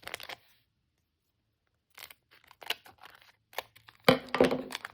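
Foil wrapper of a Yu-Gi-Oh booster pack crinkling and tearing as it is ripped open: scattered short crackles, then a louder burst of tearing about four seconds in.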